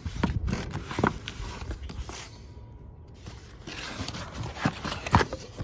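A cardboard box being handled and opened by hand: scattered knocks, taps and scuffs as the lid and flaps are pulled open, in two clusters near the start and near the end.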